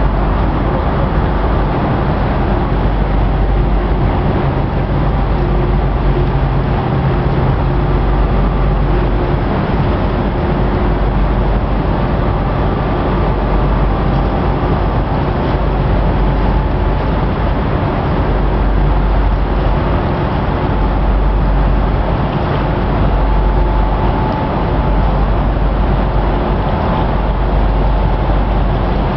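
Towboat's diesel engines running under way, a steady low rumble that holds at one level throughout.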